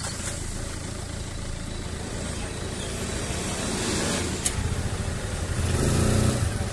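Engines of vehicles stopped in a traffic jam: a low, steady rumble that grows louder near the end, with a sharp click about four and a half seconds in.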